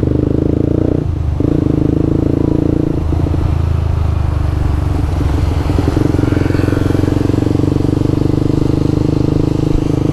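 Yamaha R15 v2's single-cylinder engine, fitted with an aftermarket exhaust pipe, running steadily while the bike is ridden. Its note changes a few times, about one and three seconds in and again near the middle.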